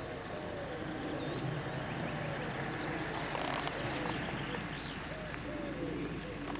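Classic Mini's engine running at low speed as it approaches slowly along a lane, with a low steady rumble. Birds call throughout, short repeated calls and high chirps.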